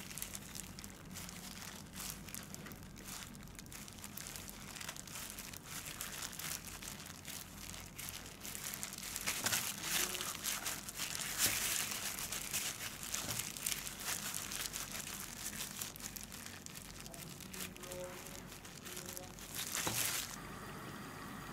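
Thin plastic disposable gloves crinkling and rustling as hands knead and squeeze mashed potato dough, with the soft squish of the dough; the crinkling is busiest about halfway through and again just before the end. About a second before the end it gives way to a steady hiss of potato balls frying in oil.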